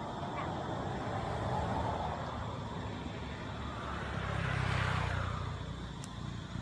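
Road traffic: a motor vehicle passes, its sound swelling to a peak about five seconds in and then fading, over a steady traffic hum with a smaller swell earlier on.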